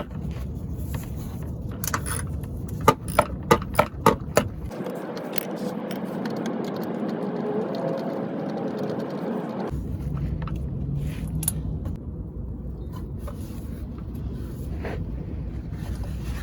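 A quick run of about six sharp metallic clicks, then light scraping and handling noise, as a quick-connect fuel-line fitting is pressed and pulled off a fuel filter under a car.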